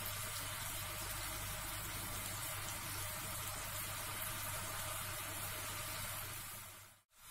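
Soy-and-vinegar adobo sauce with chicken heating in a nonstick frying pan on a gas burner, coming up to the boil: a steady hiss of small bubbles. It fades out and cuts off near the end.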